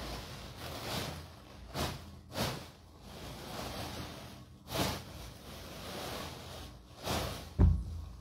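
Rustling and handling noise from a phone being moved about and fabric brushing against it: several short swishes, with a louder thump near the end.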